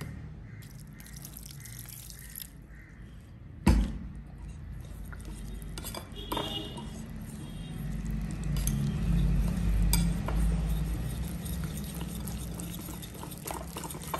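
Wire whisk stirring a thick flour-and-water batter in a ceramic bowl, the wires clinking against the bowl. There is one sharp knock about four seconds in, and quicker tapping strokes near the end.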